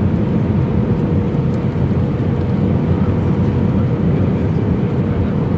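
Airbus A320 cabin noise heard from a passenger seat: a steady rush of engine and airflow noise with a steady hum running through it.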